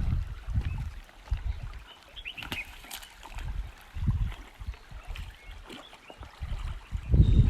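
River water sloshing and splashing in irregular surges, with a few clicks and some short high calls a little past two seconds in.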